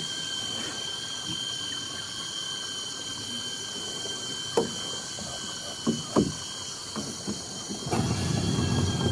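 Steady chorus of rainforest insects: a high, even whine with fainter tones above and below it. A few short clicks fall midway, and near the end a louder low noise swells for about a second and a half.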